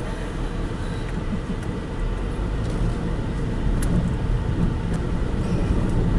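Car driving slowly along a dirt road, heard from inside the cabin: a steady low rumble of engine and tyres, with a couple of light clicks near the middle.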